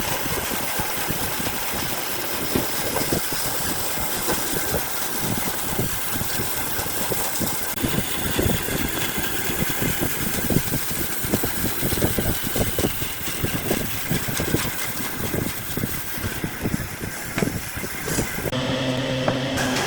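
A woodworking machine running with a dense rough noise and many irregular short knocks and scrapes. About a second and a half before the end, it changes to a steady low hum.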